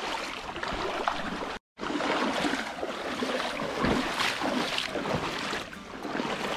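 Water splashing and trickling around kayaks as paddles dip and stroke through the river, in uneven splashes. The sound cuts out for a moment about one and a half seconds in.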